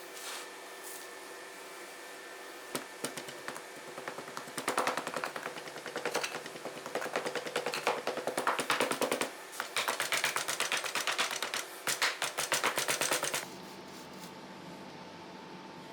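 A rapid, uneven run of sharp mechanical clicks or rattling, many a second, starting about three seconds in and stopping abruptly about two seconds before the end, over a faint steady hum.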